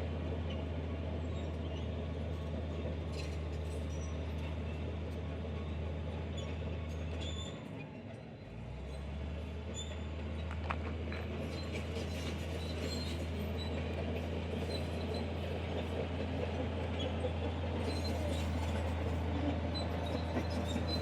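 Diesel engine of heavy earthmoving machinery running with a steady low drone, easing off briefly about eight seconds in before picking up again, with scattered metallic clicks and squeaks over it.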